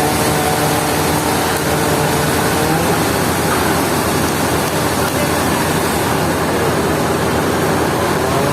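Heavy sawmill machinery running under load: a steady motor hum whose pitch holds, then breaks up and shifts about three seconds in, over a constant noisy roar.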